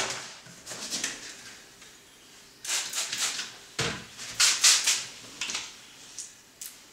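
Hand trigger spray bottle squirting water mixed with a little surfactant in short hissing bursts, a few quick squirts, then a single knock, then another few squirts: wetting the old tile and the adhesive side of a vinyl stick-on tile so it can be slid into place.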